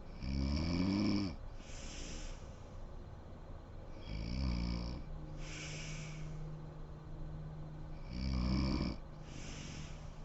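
A sleeping woman snoring: three snores about four seconds apart, each a pitched snore followed by a breathy hiss.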